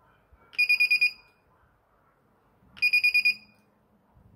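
Piezo buzzer of a portable spot welder circuit board beeping in two quick bursts of about five rapid beeps each, a couple of seconds apart, as the welding electrodes are pressed onto a battery cell to fire a weld.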